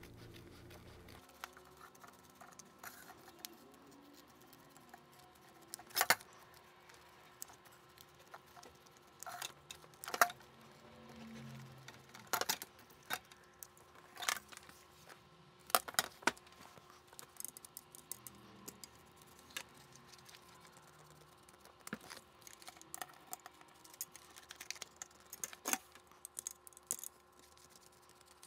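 Small scissors snipping stabilizer and felt close to a stitch line: scattered quiet snips and clicks, a few of them sharper, with occasional knocks as the plastic embroidery hoop is handled.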